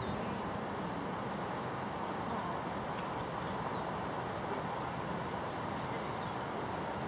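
Steady outdoor background noise, an even rumble and hiss with no change in level, with a faint click about three seconds in and two faint short high falling chirps a little later.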